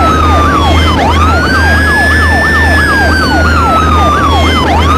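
Loud siren: a slow wailing tone that falls and sweeps back up about a second in, layered with a fast repeating downward yelp about three times a second, over a steady low hum.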